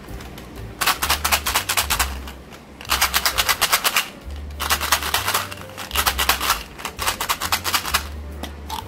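Plastic cap of a Skittles tube ratcheting as it is twisted by hand, in five runs of rapid clicks at about ten a second.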